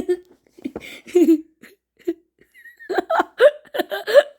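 Laughter in short bouncing bursts over the last second and a half, after a few brief voice sounds and a pause.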